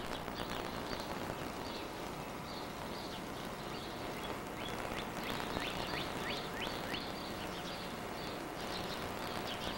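Birds chirping outdoors, a run of short falling chirps around the middle, over a steady hiss of outdoor background and camcorder tape noise.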